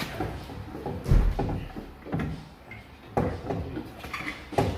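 Heavy clunks and knocks of a manual gearbox being manoeuvred up under a car toward the engine, about four in all, the loudest a deep thump about a second in.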